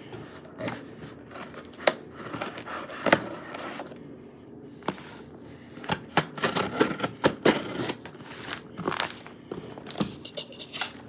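A knife cutting and scraping open a package, with irregular scrapes, crinkling and sharp clicks, busiest from about six seconds in.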